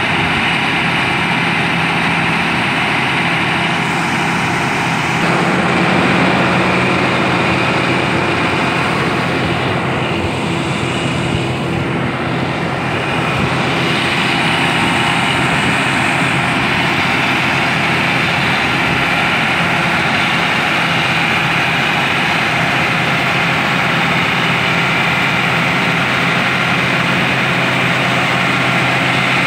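Large John Deere tractor's diesel engine running steadily at idle.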